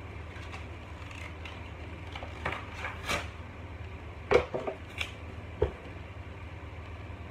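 Clear plastic wrapping crinkling and hard plastic clicking and knocking as a small plastic gift is unwrapped and handled, the sharpest knock about four seconds in, over a steady low hum.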